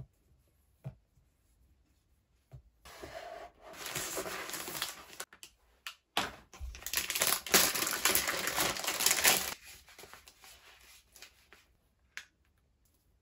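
Clear plastic packaging bags crinkling and rustling as phone cases are handled and pulled out of them, in two stretches of a few seconds each. A few soft clicks and taps come before and after.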